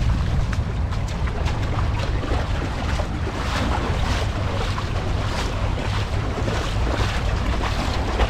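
Wind buffeting the microphone with a steady low rumble, over the wash of small waves on the beach.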